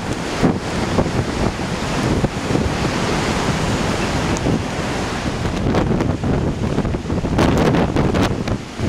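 Heavy storm surf from Hurricane Irene breaking and washing ashore, its hiss swelling up through the middle, under strong wind buffeting the microphone with gusty rumble and crackle.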